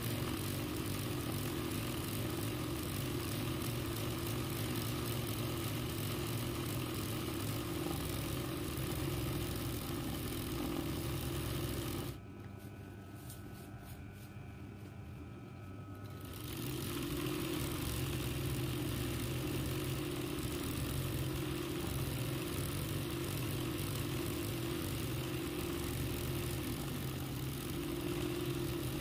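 RANEW 130 zigzag sewing machine stitching free-motion embroidery, with a steady hum of the running machine and needle. About twelve seconds in it goes quieter for about four seconds, then runs on as before.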